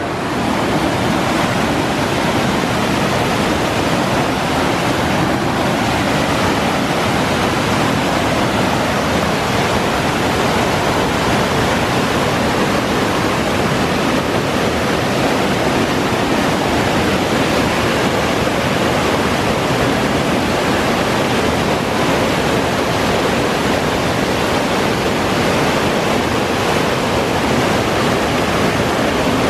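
Whitewater cascading over a ledge: loud, steady rushing water with no break.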